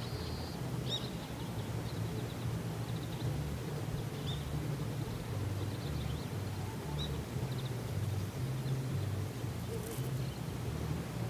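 Open-air rural ambience: an uneven low rumble of wind on the microphone, with faint, scattered bird chirps.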